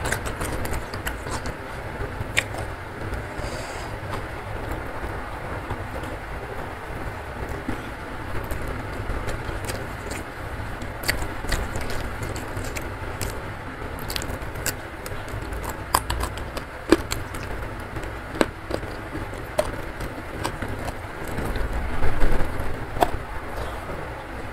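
Heavy rain falling steadily, under scattered close-up clicks and smacks of chewing and eating by hand.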